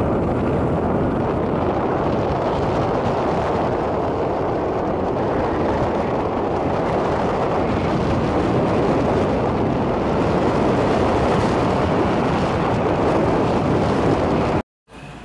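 Steady rush of wind on the microphone over a motorbike's running engine while riding at speed. It cuts off suddenly near the end.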